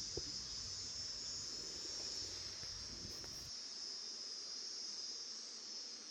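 Insects, crickets by the sound, chirring in a steady high-pitched chorus. A low rumble underneath stops a little past halfway.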